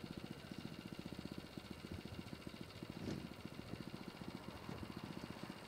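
An engine idling, with a steady, rapid, even beat and a brief louder swell about three seconds in.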